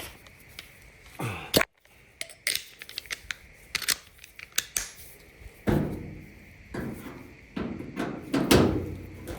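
Metal dryer parts and screws being handled: a run of sharp clicks and light rattles, with two heavier knocks about six and eight and a half seconds in.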